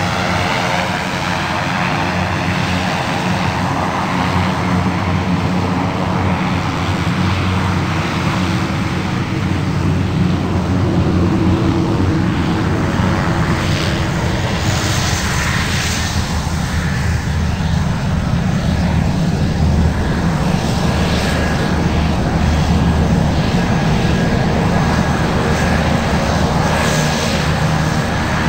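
Twin-turboprop Beechcraft King Air taxiing on low power: a steady propeller and engine drone that grows slightly louder as the aircraft turns toward the listener.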